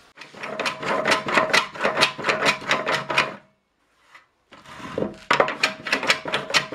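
A homemade chime plane, a small hand plane with its sole cut to the barrel's radius and a fence added, scraping around the chime at the open end of a wooden barrel. It goes in quick rhythmic strokes, about five a second, with a short break just before the midpoint.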